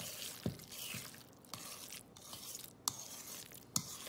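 A utensil stirring a thick, moist mixture of sautéed onions, mushrooms, gravy and melting cream cheese in a stainless steel mixing bowl: soft scraping with a few sharp clicks of the utensil against the bowl, about half a second in, near three seconds and near the end.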